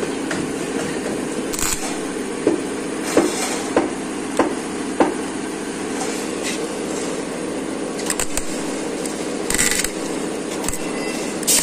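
A steady electrical hum with a run of sharp taps, then short crackling bursts of a stick welder tack-welding the end seam of a car muffler, the last and strongest near the end.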